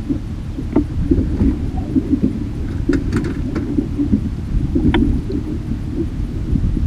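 Low, steady rumble of wind buffeting the microphone on a small boat at sea, with a few light clicks and knocks from gear being handled about one, three and five seconds in.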